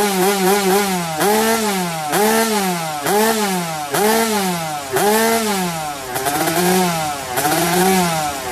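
Two-stroke underbone motorcycle engine with an ABRT20 racing exhaust, revved in repeated quick throttle blips about once a second, each rising and falling in pitch. There are a few faster, shorter blips near the start.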